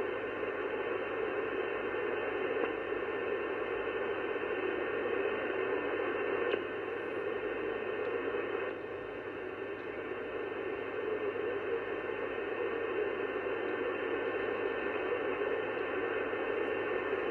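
sBitx transceiver receiving on the 11 m band with no station on: a steady hiss of static, thin and muffled as if heard through a narrow voice filter, dropping slightly in level about nine seconds in.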